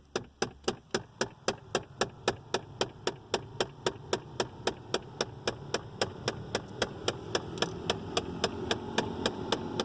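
Rapid, evenly spaced clicking, about four to five clicks a second, from behind the left side of the dashboard of a 1998 Nissan R'nessa, over a low steady hum. The owner takes it for the heater: a failed flap actuator gear motor, or heater flaps that cannot move.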